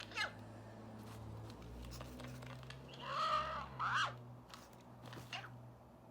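A few short, garbled, chirping sounds from a vintage Bart Simpson toy's sound effects, which no longer work properly. The loudest pair comes about three to four seconds in, over a low steady hum.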